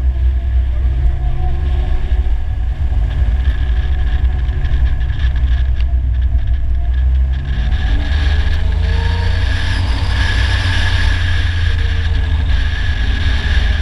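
Polaris Slingshot three-wheeler's engine running on the move, its pitch rising and falling with the revs over a steady low rumble.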